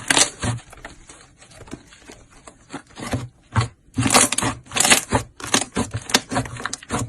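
Slime being squished and stretched by hand: bursts of sticky crackling and popping, quieter for a second or two before picking up again.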